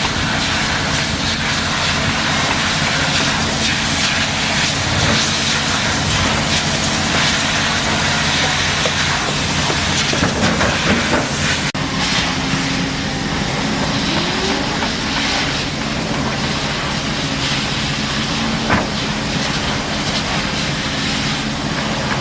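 Excavator's diesel engine running steadily under a constant hiss, with a few short knocks.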